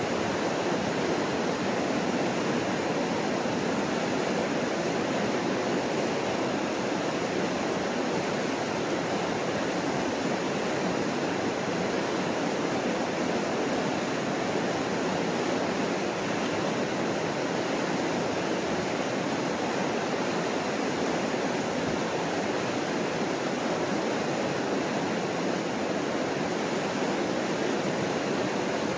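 Mississippi River rapids rushing steadily over a rocky ledge: a continuous, even roar of white water that does not rise or fall.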